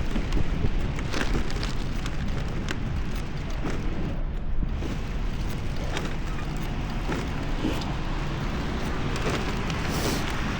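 Steady rushing road noise of a bicycle ridden through a wet, snowy street: tyres hissing through slush, with wind on the microphone.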